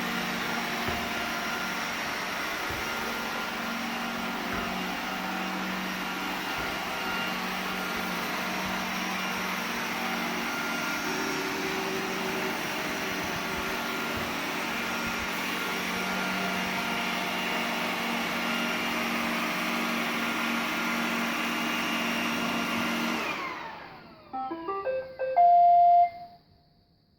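iRobot Roomba 980 robot vacuum running with a steady whir, its motors winding down about 23 seconds in. A short run of loud electronic beeps follows.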